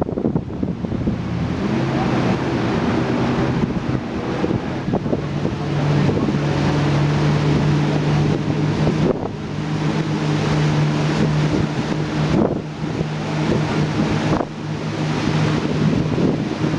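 Boat engine running steadily, its low hum stepping slightly up and down in pitch now and then, with wind buffeting the microphone.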